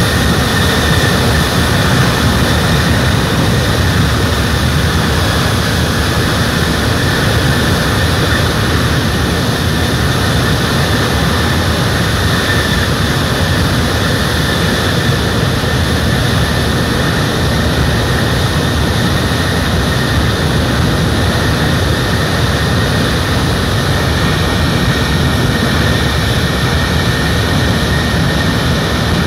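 C-17 Globemaster III's four Pratt & Whitney F117 turbofan engines running steadily on the ground: a continuous jet rush with a high, steady whine on top.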